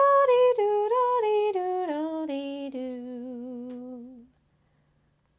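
A woman singing unaccompanied the rooster's crow, "dee-doodle-dee-doodle-dee-doo", in a melody that steps down in pitch and ends on a long held low note about four seconds in.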